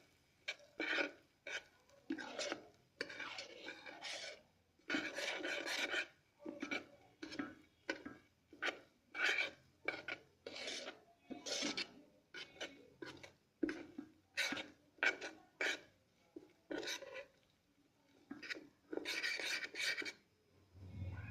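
A spoon stirring and scraping semolina roasting in butter against the inside of an electric kettle, in repeated rasping strokes roughly one or two a second; the constant stirring keeps the semolina from sticking.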